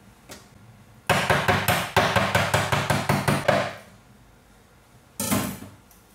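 A kitchen knife striking a wooden cutting board in a fast run of strokes, about seven a second, starting about a second in and lasting some two and a half seconds. A little after five seconds the knife clatters once as it is set down on a metal dish rack.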